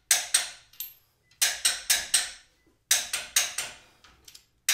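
Wrench ratcheting on the track bar bracket bolts as they are torqued down: runs of three to five sharp clicks, about four a second, in four strokes with short pauses between.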